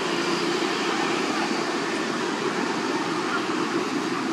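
Steady rushing background noise with no distinct events, and a faint low hum under it.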